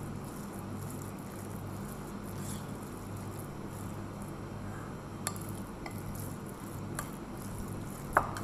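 Spoon stirring a thick cabbage, tuna and flour batter in a glass mixing bowl, with a few sharp clinks of the spoon against the glass, the loudest near the end. A steady low hum runs underneath.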